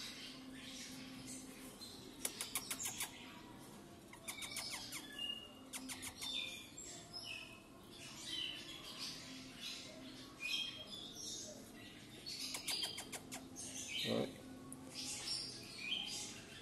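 Small birds chirping: many short, high chirps throughout, with a few quick clicking trills.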